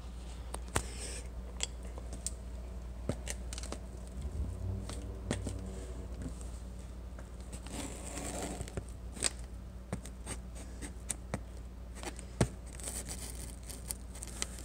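Scissors picking and scraping at the packing tape on a cardboard box while the box is handled: scattered sharp clicks and short scrapes at an uneven pace, with no steady cutting rhythm.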